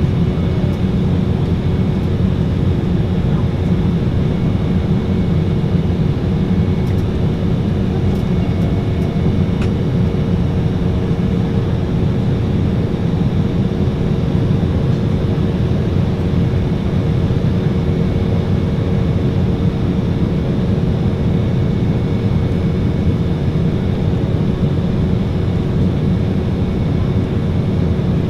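Steady cabin noise inside an Embraer 190 jet in flight: a low, even rumble of airflow and its two CF34 turbofan engines, with a few steady hums running through it.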